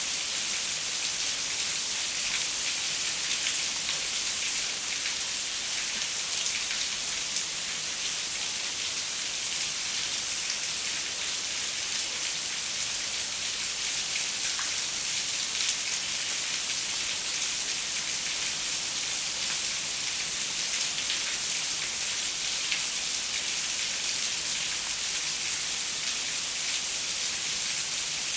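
Steady rain pattering on a window, a continuous hiss with many small drop ticks and no thunder.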